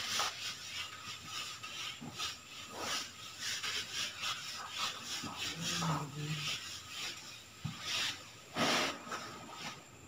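Whiteboard duster wiping marker off a whiteboard in a series of irregular rubbing strokes, a stronger swipe near the end.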